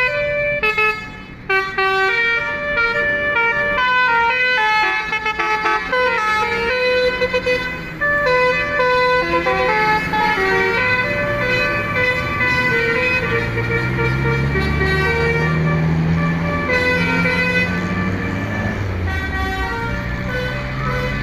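An Indonesian telolet bus horn, a multi-tone musical horn, playing a melody of short stepping notes. In the second half a low engine note rises and holds as the horn tune fades.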